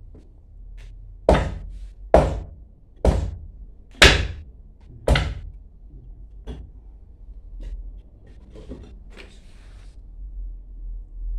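Five heavy hammer blows on metal pump parts, about one a second, each ringing briefly, then a few lighter knocks: striking to free a stuck part of the booster pump.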